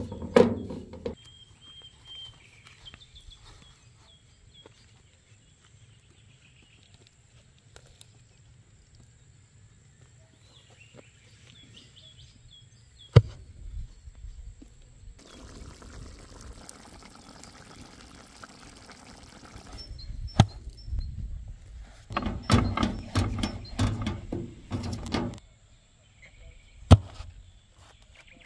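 Wooden rolling pin working bread dough on a floured metal tray, in short bouts near the start and again toward the end. A few sharp knocks come in between, and birds chirp faintly.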